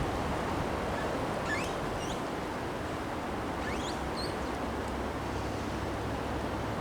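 Wind from a windstorm blowing as a steady rushing noise. A few short, faint, high rising chirps come about one and a half and four seconds in.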